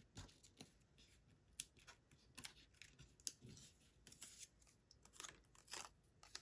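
Faint, scattered light clicks and rustles of a small cardstock strip with foam adhesive dots being handled, set down and picked up.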